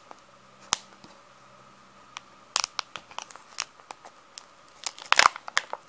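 Plastic seal strip being peeled from the seam of a Kinder Joy plastic egg, with scattered crinkles and sharp plastic clicks. The clicks bunch up about two and a half seconds in, and the loudest come near the end as the egg is opened.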